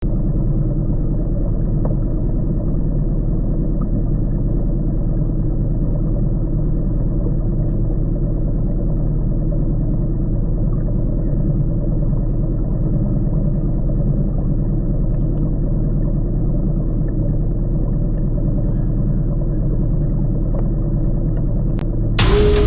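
Small boat's outboard motor running steadily under way, a low even rumble. Music starts right at the end.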